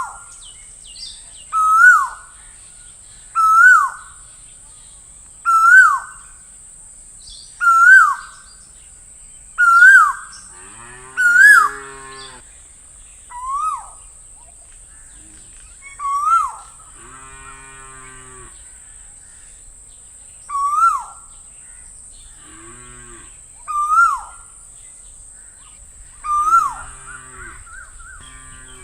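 Asian koel (koyal) calling: a clear whistled note that swoops up and drops, repeated about every two seconds, a dozen times, spacing out after the middle. A deeper, buzzy call about a second long breaks in four times.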